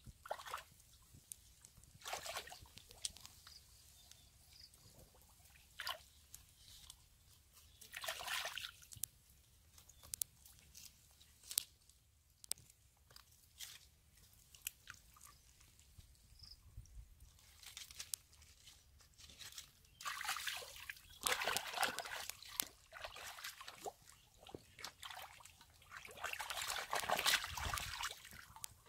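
Hands and legs sloshing and squelching in shallow muddy water and wet mud, in irregular bursts with small splashes. The bursts are busiest in the second half.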